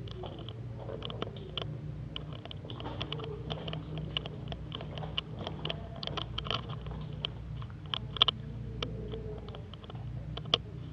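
Irregular light clicks and taps over a steady low hum, with two sharper, louder clicks near the end.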